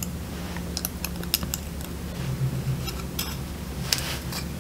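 Small scattered clicks and taps of a capacitor's wire leads being fitted into the holes of a circuit board, with the board being handled, over a steady low hum.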